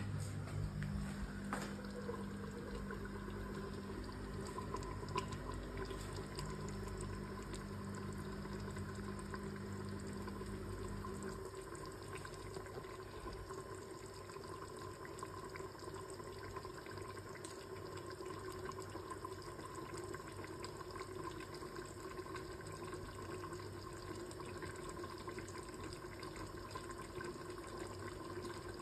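Beef rendang with potatoes simmering in a covered wok: a steady bubbling of the sauce under the glass lid. A low hum runs underneath and stops about eleven seconds in.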